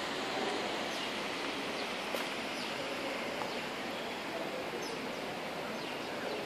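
Steady hiss of a large fountain's falling water, with faint high bird chirps here and there.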